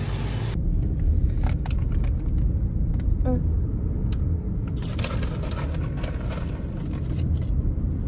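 Car on the move: a steady low rumble of engine and road noise, with a few light clicks and knocks.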